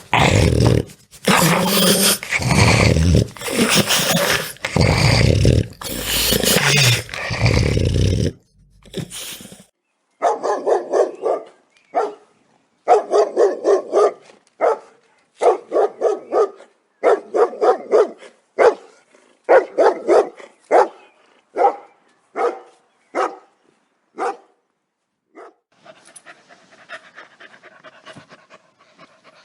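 Dogs barking. First comes several seconds of loud, rough, deep barking in quick succession, then after a short pause a run of shorter, higher barks about one or two a second. Near the end the barks stop and only faint sounds remain.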